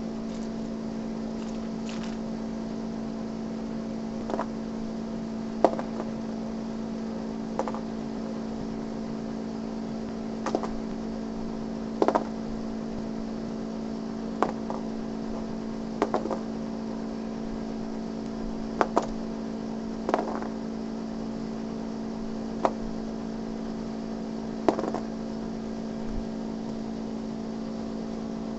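Small plastic Gogo's Crazy Bones figures being flicked and knocking against each other on a cardboard board: short sharp clicks every one to three seconds, about a dozen in all. Under them runs a steady low electrical hum.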